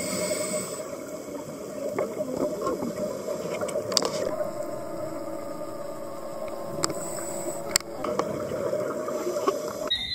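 Underwater sound of a scuba dive: gurgling bubbles from a diver's regulator over a steady hum, with a few sharp clicks.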